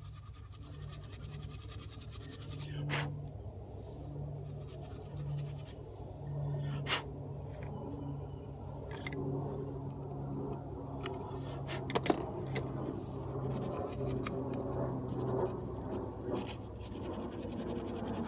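Brass wire brush scrubbing the small metal plunger of an outboard carburetor: a run of fine scratching strokes, broken by a few sharp clicks, the loudest a quick double click about twelve seconds in. A low hum comes and goes underneath.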